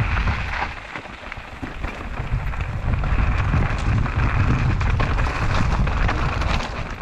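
Wind buffeting the camera microphone as a hardtail mountain bike runs fast down loose rocky singletrack, its tyres crunching over gravel and the bike rattling over stones. The noise eases a little about a second in and grows louder again from about three seconds.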